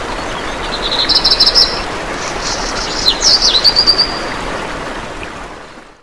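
Small birds singing: quick runs of high repeated notes, then trills and sharp downward-swooping calls, over a steady rushing background noise. It fades in at the start and fades out near the end.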